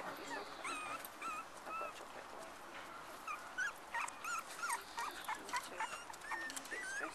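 Young cocker spaniel puppies squeaking and whimpering: many short, high-pitched squeaks, one after another and often overlapping. There are a few faint clicks among them.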